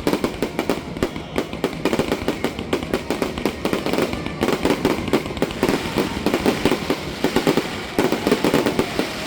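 Fireworks going off in a rapid, continuous volley of many bangs and crackles.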